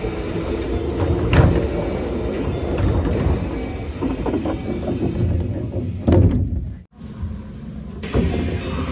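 Commuter train noise: a steady low rumble with clatter and a few sharp knocks. It breaks off abruptly about seven seconds in, then resumes.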